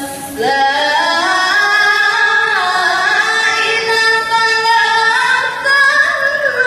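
A girl's voice reciting the Quran in the melodic, chanted tajweed style, drawing out long held notes that step and bend up and down in pitch.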